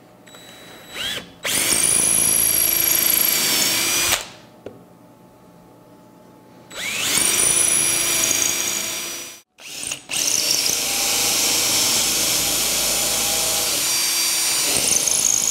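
Cordless drill boring shelf-pin holes into a cabinet side panel: three runs, each spinning up with a rising whine and then holding steady for a few seconds. The first starts about a second and a half in, the second about seven seconds in, and the longest starts about ten seconds in.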